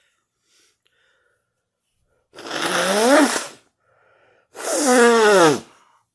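A person sneezing twice in a row, about two seconds apart. Each sneeze is loud, noisy and voiced and lasts about a second; the second slides down in pitch.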